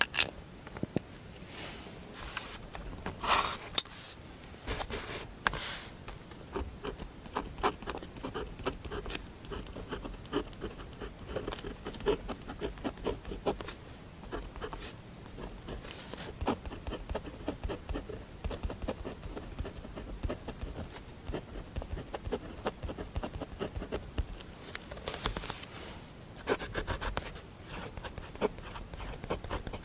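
Fountain pen nib scratching across paper in many short, quick strokes. There are a few louder brushing sounds in the first few seconds and again near the end.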